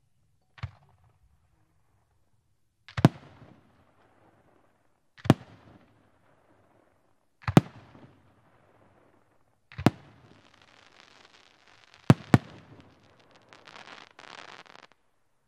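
3-inch aerial fireworks shells (green and purple brocade crowns and a purple-green popping shell) being fired and bursting: a small bang, then sharp bangs about two seconds apart, two in quick succession near the end. A thick crackle of popping stars builds up over the last few seconds.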